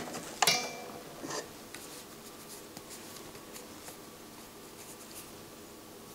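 Small parts of a CD player's disc-drawer mechanism being handled as its little DC loading motor is taken out: a sharp click with a brief ring about half a second in, a softer click about a second later, then faint rubbing and light ticks of fingers on the motor and plastic.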